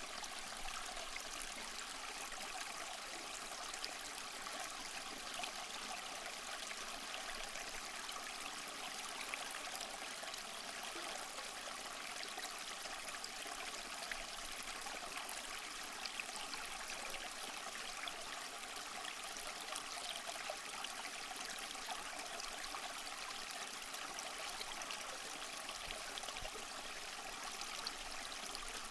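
Small mossy waterfall: water trickling and splashing steadily over rock, an even rushing patter with small splashes.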